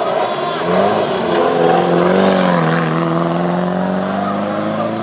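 Rally car's engine running at high revs, rising in pitch over the first second and a half and then holding steady, loudest a little after two seconds in.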